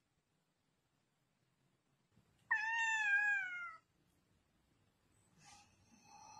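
Domestic cat giving one long meow of about a second, falling slightly in pitch toward the end. Two much fainter short sounds follow near the end.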